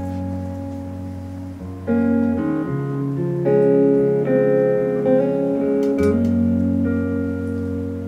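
Acoustic guitar playing a slow instrumental intro, with held chords that change every couple of seconds.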